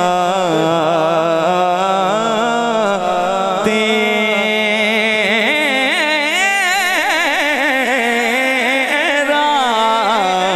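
A man singing a naat, an Urdu devotional hymn, solo into a microphone: long drawn-out phrases with wavering, ornamented melismas, sung without a break.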